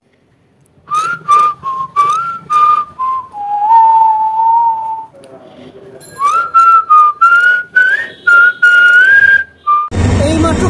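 A whistled tune: short sliding notes, then a longer held lower note, then another run of short rising notes.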